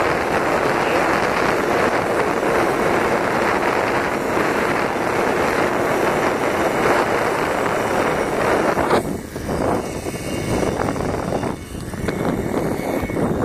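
Moped running along the road while riding, mixed with heavy wind noise on the phone microphone. The noise drops and turns uneven about nine seconds in, as the ride slows.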